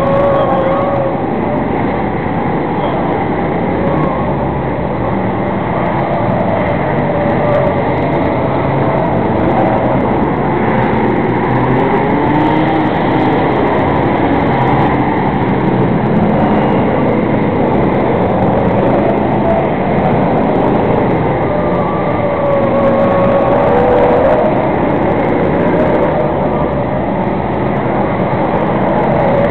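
A field of enduro race cars' engines running laps around a paved oval, a loud, continuous din with engine notes rising and falling as cars pass.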